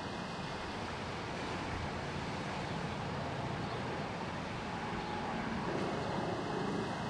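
Steady ambient background noise, a hiss with a low rumble and no distinct events; a faint hum comes in near the end.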